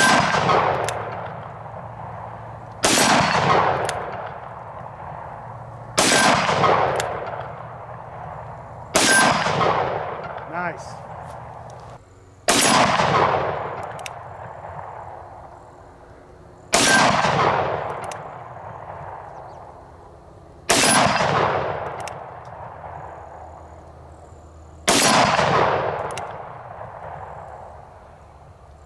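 Magnum Research BFR single-action revolver in .30-30 Winchester firing eight shots, one every three to four seconds. Several shots are followed by a brief ring from the steel target being hit.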